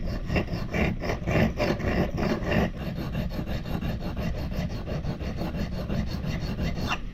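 Homemade steel fire striker scraped back and forth on a wet coarse whetstone, about four quick strokes a second, as its face is ground flat. The strokes stop abruptly near the end.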